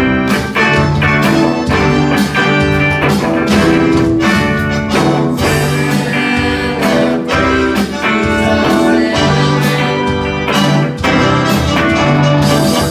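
Instrumental music with guitar and a steady beat.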